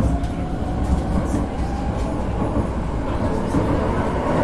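A Vienna metro train running, heard from inside the passenger car. The wheels and running gear make a steady, dense rumble on the track.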